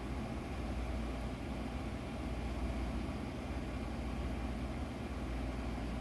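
Steady low hum with a hiss, even throughout with no distinct events: constant background machine noise such as a fan or air conditioner.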